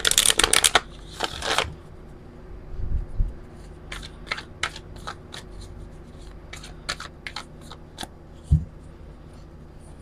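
Oracle cards being riffle-shuffled by hand: a quick rattle of cards falling together at the start and again a moment later, then scattered single card taps and flicks as the deck is squared and split, with one soft thump near the end.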